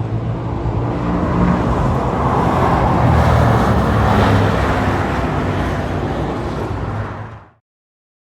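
A car engine running as the vehicle moves, growing louder toward the middle and then easing off, before the sound cuts off abruptly.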